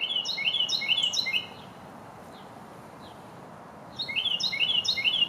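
Carolina wren singing its rolling, repeated-phrase song: a burst of about four quick phrases at the start, then another about four seconds in. Steady background noise lies under the song.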